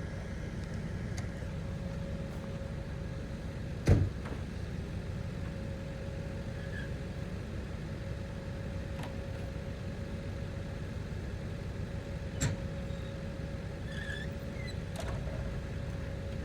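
Kubota KX040-4 mini excavator's diesel engine running steadily with a thin steady whine over the low rumble, and a sharp knock about four seconds in and a smaller one about twelve seconds in.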